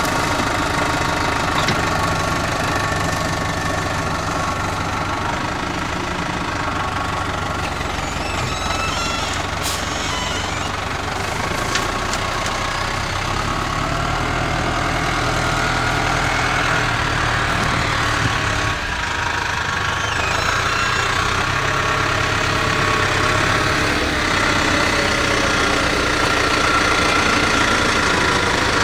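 Engine driving a MOLE tree transplanter, running steadily under work, its note dropping and rising a few times.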